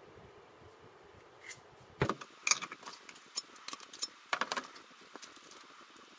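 Metal putty knife and spatula clinking and scraping against a tin of body filler as the filler is scooped out, starting with a sharp knock about two seconds in, followed by a run of irregular clicks.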